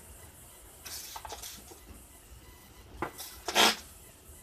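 Hand spray bottle squirting soapy water onto a gas cylinder's valve and fittings to find leaks. It gives a few short sprays about a second in, then two more about three seconds in, the second of these the loudest.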